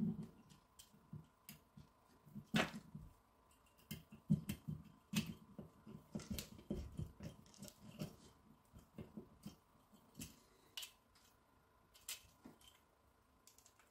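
Faint, irregular clicks and light taps of small plastic model-kit parts and tiny screws being handled and driven with a small screwdriver.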